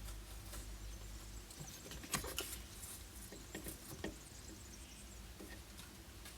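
Light scratching, rustling and tapping of hand work as cut pieces are handled and fitted, with a few sharper clicks about two seconds in and again near four seconds, over a low steady hum.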